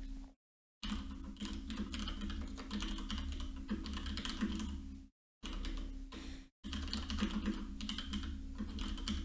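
Typing on a computer keyboard: quick, irregular keystroke clicks over a steady low electrical hum. The sound cuts out to dead silence briefly a few times.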